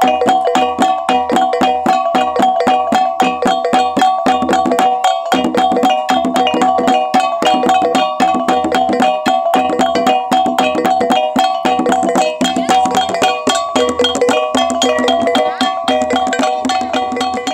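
Traditional Ngada gong gendang (Nggo Lamba) ensemble: small hand-held gongs struck with sticks in a fast, dense interlocking rhythm over a large stick-beaten drum, with several gong pitches ringing together.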